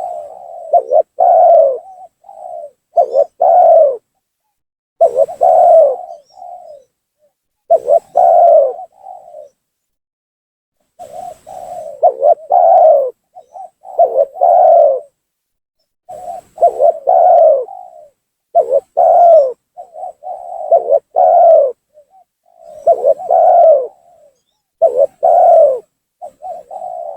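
Spotted dove (tekukur) cooing over and over: each phrase is a few short coos and then a longer, swelling coo, about every two seconds. It is a lively territorial call used as a lure to draw rival doves down.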